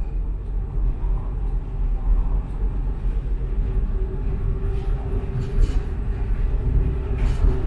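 Prague tram running along its track, heard from on board: a continuous low rumble under a steady motor hum, with a few short hissy swells of wheel and rail noise.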